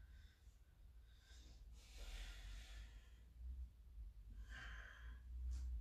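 Faint breathing of a man: a long breath out about two seconds in, and a shorter breath about four and a half seconds in.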